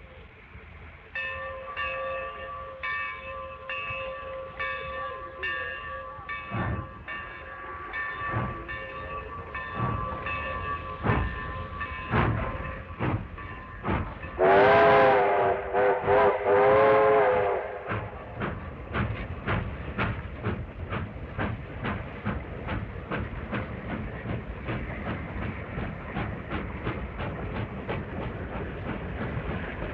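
A train's bell rings in steady repeated strikes for the first dozen seconds. Midway come two long, loud horn blasts, and after them a fast run of wheel clicks over the rail joints as the train rolls by.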